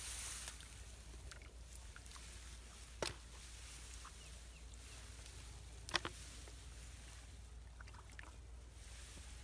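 Hands faintly sloshing and groping through shallow muddy water among rice plants, with two short, sharp sounds about three seconds apart.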